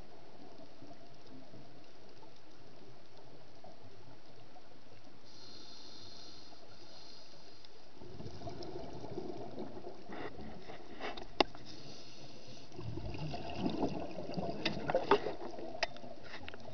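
Underwater recording through a camera housing: a steady hiss, then from about eight seconds in the irregular bubbling of a scuba diver's exhaled air, in two spells, with a few sharp clicks.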